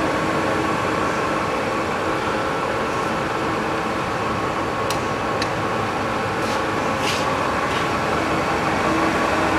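Hwacheon HL 580 centre lathe running, its spindle turning steadily at about 1350 RPM with a steady hum, and a few faint ticks in the middle.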